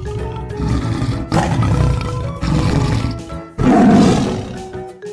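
Tiger roaring three times in a row, the last roar starting suddenly and loudest, over background music.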